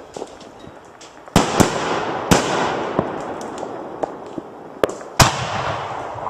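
Aerial fireworks bursting overhead: a series of sharp bangs, several coming in quick pairs, each followed by a long rolling echo that fades away.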